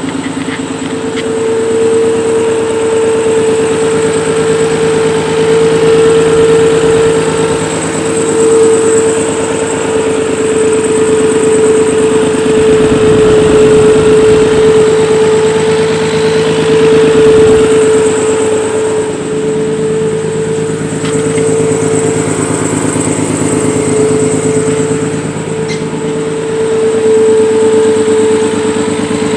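Nissan 300ZX (Z32) engine running with a loud, steady whine over it. The owner suspects a vacuum leak, perhaps from a wrongly fitted intake plenum gasket.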